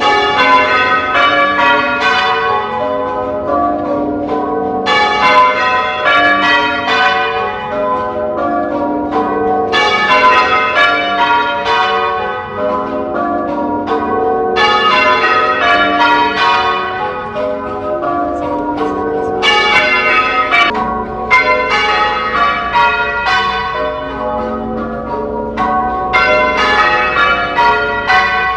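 Church tower bells being change-rung: a continuous run of overlapping bell strokes, one bell after another, swelling in brighter surges every few seconds as the rows go round.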